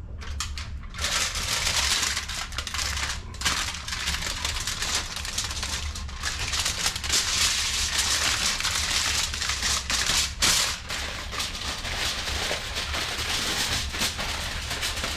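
Aluminium foil crinkling and crackling continuously as it is folded and pressed by hand around a whole fish, starting about a second in.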